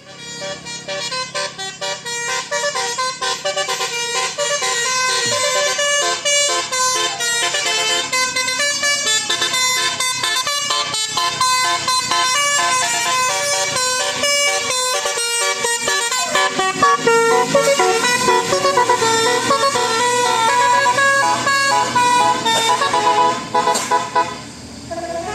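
Bus's telolet Basuri musical horn playing a fast melody of short pitched notes, running on almost without a break, with a brief drop near the end.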